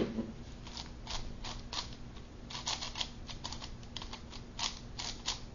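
Plastic clicking and clacking of a tiled QJ 5x5x5 puzzle cube being turned by hand, an irregular run of layer turns that bunches into quicker clicks a few seconds in. The cube is new and factory-lubricated, and turns smoothly.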